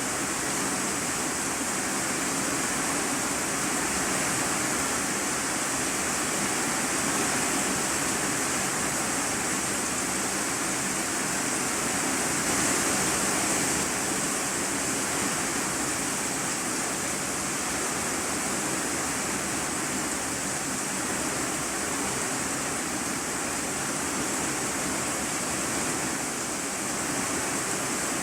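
Heavy rain drumming steadily on a corrugated iron-sheet roof, heard from inside the room beneath it: a dense, even hiss with no let-up.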